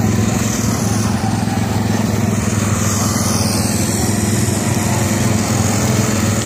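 Engines of several small winged dirt-track sprint cars racing around an oval, a loud steady engine drone. A high whine sweeps downward in pitch in the first half as a car goes by.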